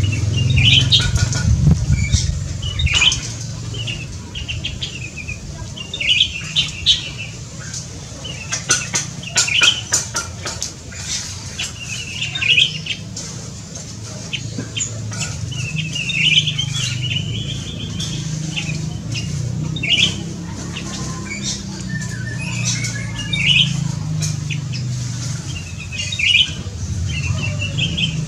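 Olive-winged bulbul bathing under a falling water spray, fluttering and shaking its wet wings in bursts, loudest about nine to ten seconds in. Short chirping bird calls come every second or so over a steady background of falling water.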